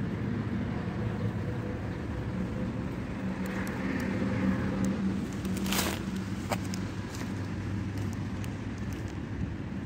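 Steady rumble of road traffic with a low hum, and a short click about six seconds in.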